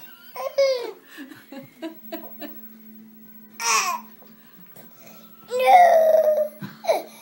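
A teary toddler whimpering and catching his breath while sucking on an orange wedge, with small wet smacking clicks. A longer whining cry comes about five and a half seconds in.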